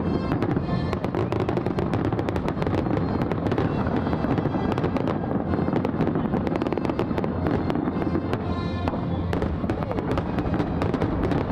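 Fireworks finale barrage: aerial shells bursting in rapid, unbroken succession, the bangs running together into one continuous din.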